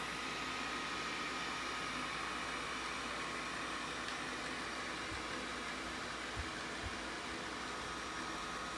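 ZOOZEE Z70 robot vacuum-mop running, a steady whir with a faint high whine, as it heads back to its charging dock. A couple of soft bumps come around two-thirds of the way through.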